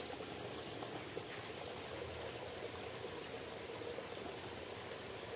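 Shallow stream water trickling and running steadily.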